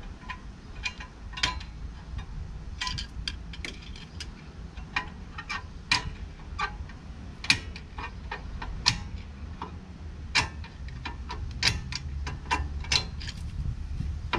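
Handbrake shoe adjuster inside the Peugeot Boxer's rear brake disc being turned with a tool through a hole in the disc, clicking notch by notch to set the shoes against the drum: irregular sharp metallic clicks, about three a second, some much louder than others, over a low steady hum.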